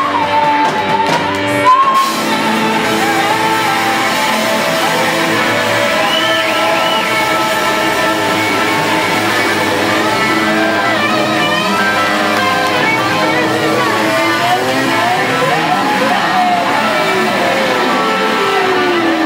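Live rock song played in a hall: guitar with held, ringing notes and a singing voice.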